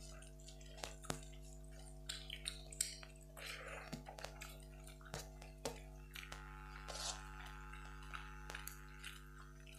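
Eating rice and curry by hand: wet chewing and lip smacks with scattered short clicks and clinks of fingers on steel plates, over a steady hum of several tones.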